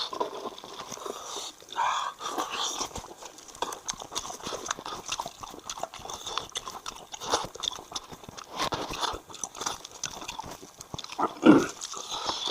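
Close-miked eating of lamb's-head meat: irregular biting and chewing with many small wet clicks, and a louder short burst near the end.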